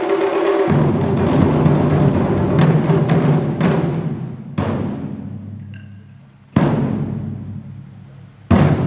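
Taiko ensemble playing barrel drums on slanted stands: fast, dense drumming for about four seconds, then three heavy unison strikes about two seconds apart, each left to ring and fade.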